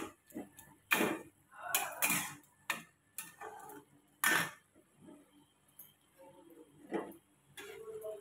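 Flat metal spatula scraping and knocking against a metal kadhai while stirring and turning wet mustard greens. The strokes come irregularly, loudest in the first half.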